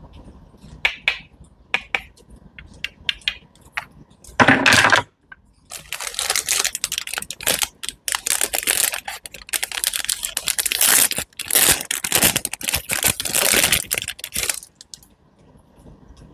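Kitchen knife cutting crisp fruit or vegetables on a cutting board: scattered small taps and clicks, one loud burst about four and a half seconds in, then a long run of dense crunching that stops shortly before the end.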